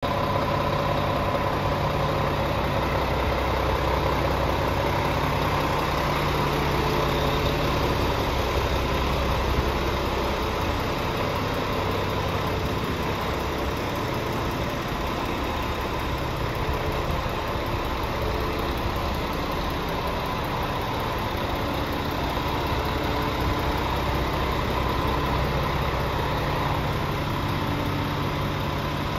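Scania R490 Euro 6 truck's 13-litre straight-six diesel idling steadily.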